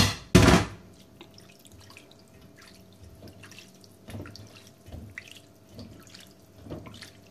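Water splashing into a steel pot of cooked fusilli, loud for under a second, then a hand stirring the pasta in the water with soft wet splashes and drips.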